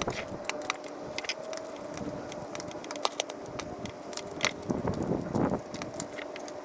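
Irregular light metallic clicks and clinks of a socket and ratchet tightening a reverse light switch into a manual transmission case.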